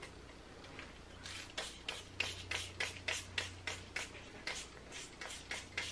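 Pump top of a bottle of leave-in conditioner pressed again and again with a thumb, a quick run of short clicks, about three or four a second, starting about a second in.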